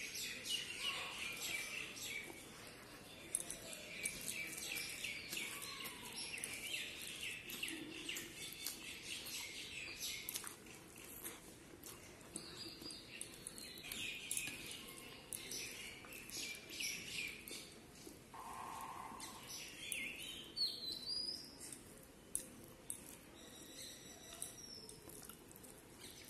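Eating by hand: rice and curry squished and mixed on a steel plate and chewed with the mouth, over frequent short high-pitched chirps like small birds calling in the background.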